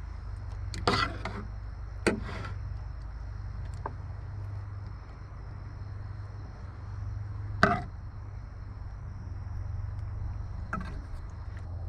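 A handful of sharp, irregular knocks of kitchen utensils against a board or dish, the loudest about a second in and again near two-thirds of the way through. Behind them, insects trill steadily with a high, even tone, over a low hum.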